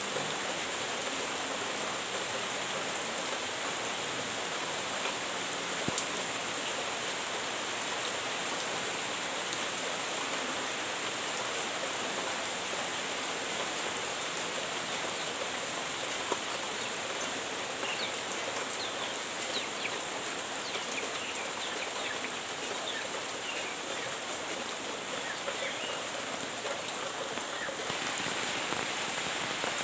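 Heavy rain falling steadily, an even hiss, with a couple of sharp taps about six and sixteen seconds in.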